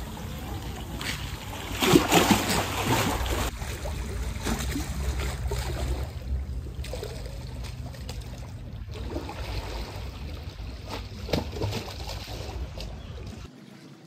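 Sea water lapping and splashing against a concrete sea wall, with louder splashes about two seconds in and again near the end.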